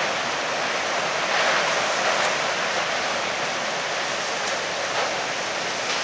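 Steady, loud rush of a storm: heavy rain and wind, even and unbroken throughout.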